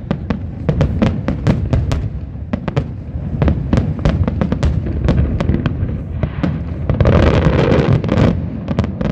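Fireworks finale barrage: rapid, overlapping bangs and cracks over a continuous low rumble. About seven seconds in, a dense hissing stretch lasts roughly two seconds.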